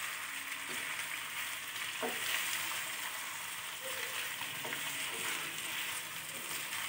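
Raw chicken pieces sizzling steadily in hot oil in a nonstick kadai as they are sautéed and stirred with a wooden spatula, with faint scrapes as the pieces are turned.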